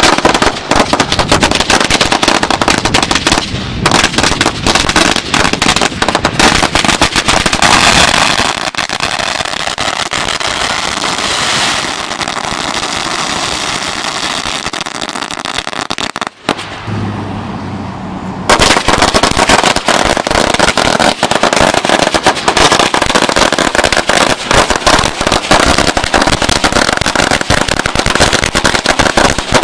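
Firecracker celebration rolls going off: a rapid, unbroken crackle of small bangs that softens into a more even crackle about a third of the way in. It cuts off suddenly a little past halfway, and after a short quieter stretch a second roll starts popping and runs on to the end.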